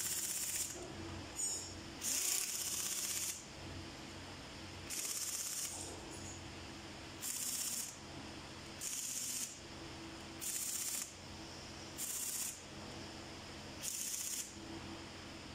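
Compressed-air blow gun hissing in short blasts, about nine in all, each half a second to a second long, aimed into the cylinder heads of a Cummins QST30 diesel during assembly. A faint steady hum runs underneath.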